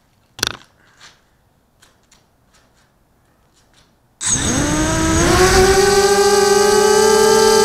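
A sharp knock and a few faint clicks. About four seconds in, the BPQ250 quadcopter's four Cobra 2300KV brushless motors with HQProp 5040 propellers spin up to hover throttle: a loud buzzing whine that rises in pitch over about a second and then holds steady.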